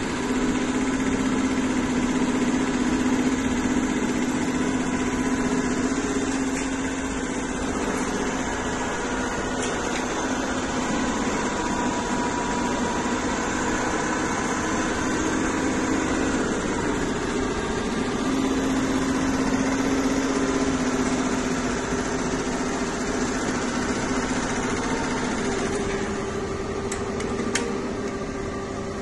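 Multi-needle single-head embroidery machine running, a steady mechanical hum whose note shifts higher about three-quarters of the way through, with a few faint clicks near the end.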